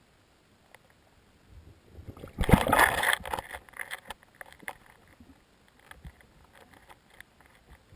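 Heard underwater: a sudden loud rush of churned water lasting about a second, starting some two and a half seconds in, as something stirs up the sediment of the lake bed right beside the microphone. It trails off into scattered crackles and ticks of settling grit.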